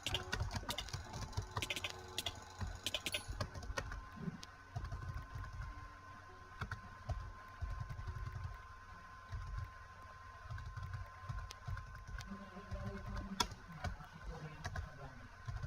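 Computer mouse buttons clicking: quick runs of clicks in the first few seconds, then scattered single clicks.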